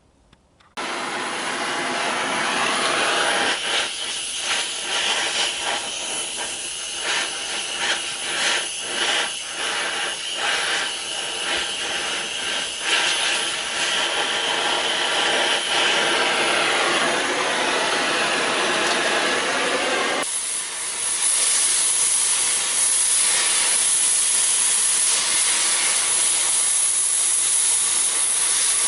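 Oxy-fuel cutting torch flame hissing steadily while it heats a bent steel tab so it can be bent straight. The hiss flickers unevenly at first and turns abruptly brighter and steadier about twenty seconds in.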